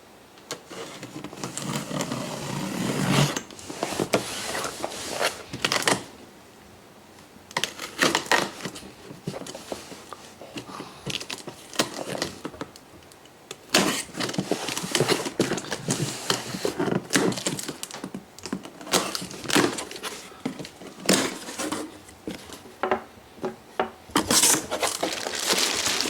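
A large cardboard shipping box being opened and handled by hand: irregular scraping, tearing and rustling of cardboard with sharp knocks, a quieter pause about a quarter of the way in.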